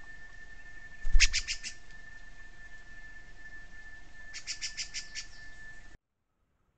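Pale-breasted thrush giving quick runs of sharp, clicky call notes, one run about a second in with a low thump, and another of about seven notes near the end, over a steady thin whine. The sound cuts to near silence near the end.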